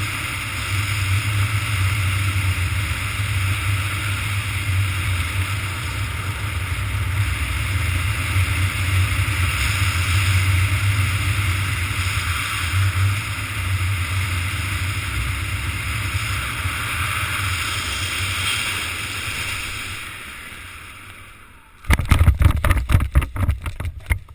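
Steady wind rushing over a helmet camera's microphone under a descending Crossfire2 ram-air canopy; it fades about 20 seconds in as the canopy slows for landing. Near the end comes a burst of loud rapid buffeting and knocks as the skydiver touches down and the canopy comes down.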